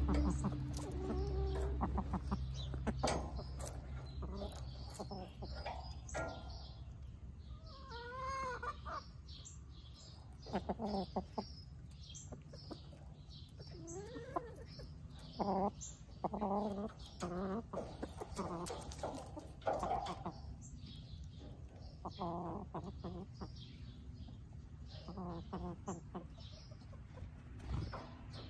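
Hens clucking in short, soft calls close to the microphone, one call after another, with a longer rising-and-falling call about eight seconds in. In the first few seconds, louder rustling and rumble from feathers brushing over the microphone.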